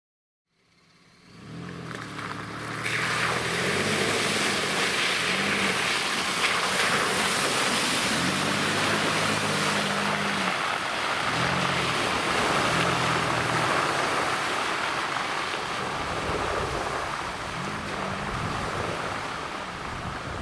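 Mitsubishi Pajero Sport's engine running under load through deep mud, its note rising and falling in stretches, over a steady hiss of tyres churning and spraying mud and water. The sound fades in over the first couple of seconds.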